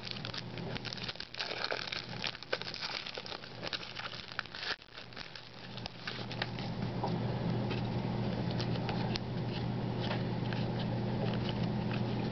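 Trading cards being handled and flipped through: many small crisp clicks and rustles of card stock, busiest in the first half and sparser after, over a steady low hum.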